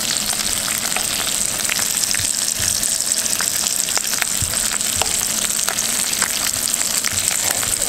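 Whole trout pan-searing in garlic basil butter in a nonstick skillet, sizzling steadily with many small pops and crackles. The butter is on fairly high heat.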